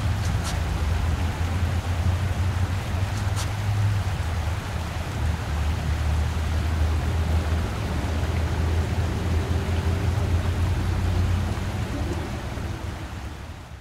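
Steady night street ambience: a low rumble under an even hiss, with a light click about half a second in and another about three seconds in, fading out at the end.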